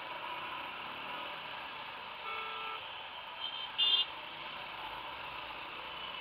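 Steady traffic and riding noise from a motorbike moving through city traffic, with a vehicle horn sounding briefly about two seconds in and a short, louder, higher horn beep about four seconds in.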